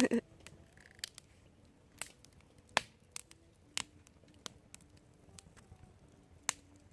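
Wood campfire crackling, with sharp, irregular pops about once a second over a quiet background.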